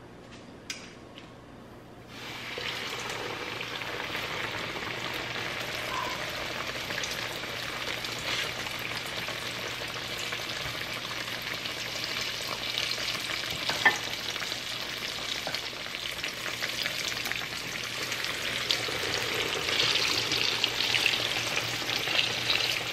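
Breaded chicken fried steak frying in hot oil in a skillet: a steady sizzle that starts abruptly about two seconds in, as the steak goes into the oil, and grows louder near the end.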